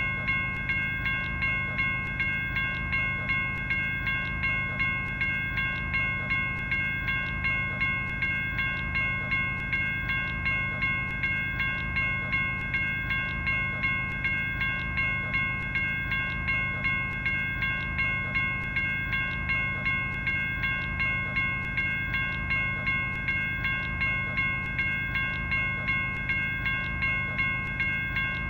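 General Signals Type 1 electronic railroad crossing bell (e-bell) ringing steadily, with even, metallic-sounding dings at about two a second, over a low hum.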